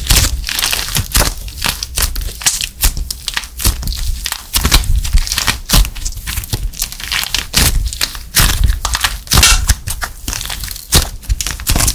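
Plaster clay squeezed, kneaded and pulled apart by hand, giving dense, irregular crackling and crunching as it breaks up.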